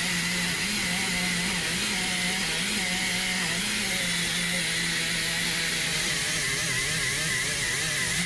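Air-powered right-angle die grinder with an abrasive surface-conditioning disc, running steadily as it scrubs old gasket material off a cylinder head's intake mounting face. Its pitch wavers and dips as the disc is pressed into the metal. At the very end it shuts off and spins down.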